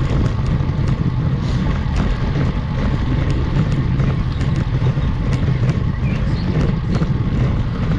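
Steady rumble and wind noise on a GoPro action camera's microphone while a road bike climbs a steep paved hill, with many small clicks and taps over it.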